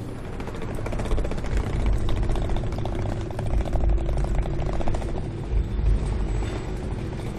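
Low vehicle engine and traffic rumble with rattling, a quick regular pulsing in the middle.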